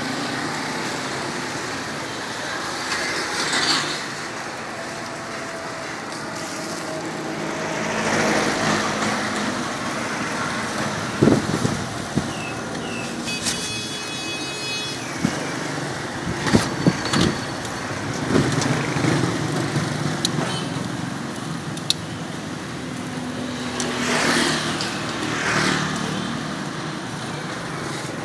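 Roadside street noise: a steady traffic hum with vehicles swelling past a few times, and several sharp knocks and clinks in the middle.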